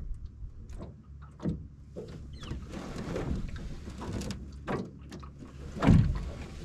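Water sloshing against the side of an aluminium boat as a caught bass is released over the gunwale. There are scattered knocks on the aluminium hull, and a louder low thump about six seconds in.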